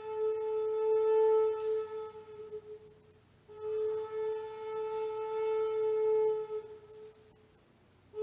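Flute playing two long, held notes on the same pitch, each lasting about three seconds, with a short pause between them.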